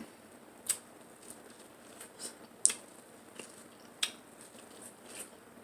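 Snow crab shells being cracked and picked apart and eaten: a series of sharp, irregular snaps and crunches with wet squishing, the loudest about two and a half seconds in.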